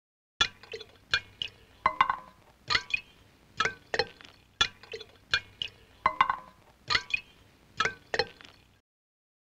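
Cartoon sound effect: a regular run of sharp, briefly ringing plinks, about one every second, some followed by a smaller second plink.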